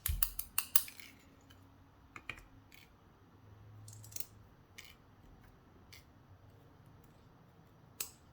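Small metal clicks and taps from a pin-tumbler lock being taken apart, its pins and springs handled with small tools. A quick cluster of clicks comes in the first second, then scattered single clicks.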